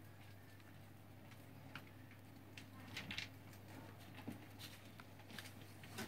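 Near silence: room tone with a low steady hum and a few faint scattered clicks, a small cluster of them about three seconds in.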